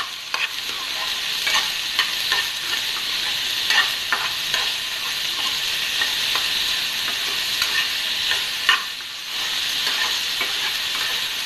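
Boiled sweet corn kernels sizzling in hot oil in a steel pan while a metal slotted spoon stirs them, with scattered clinks and scrapes of the spoon against the pan.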